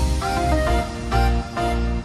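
Background music with a steady electronic beat and a pulsing bass line.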